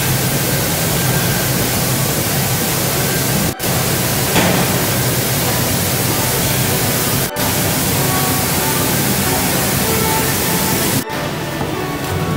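Loud, steady hiss of cooperage workshop machinery over a low hum, broken by three brief dropouts.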